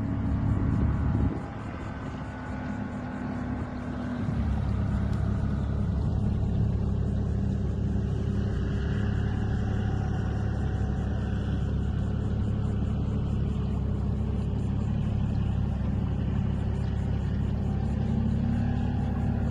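An engine running steadily with a low drone; its pitch drops a little about four seconds in and rises again near the end.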